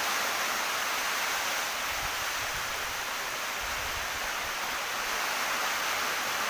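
Steady rushing noise, even throughout with no separate events, of the kind running water or wind on a microphone makes.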